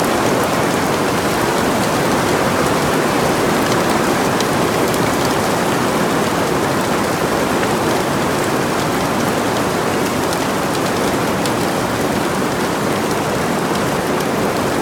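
Hail and rain drumming steadily on a greenhouse: a dense, even patter with many separate sharp ticks of hailstones striking.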